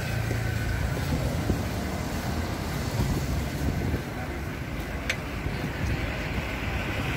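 Town-centre street ambience: a steady low rumble, with one sharp click about five seconds in.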